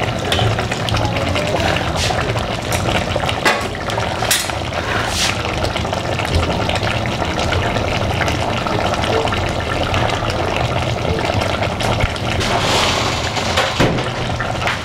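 Thick chicken stew simmering in a metal pot, a steady bubbling hiss, with a wooden spoon stirring and scraping in the pot near the start and a few light knocks.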